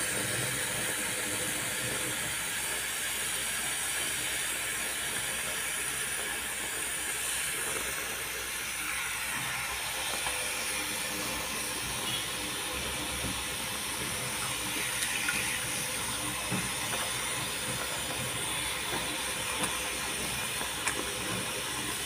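Tap water running steadily, splashing over cupped hands and a parrot's wet feathers into a basin.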